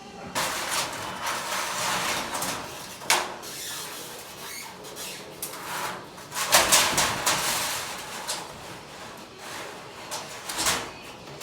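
Scraping and rattling of roofing sheets being handled and slid on the roof, with a few sharper knocks.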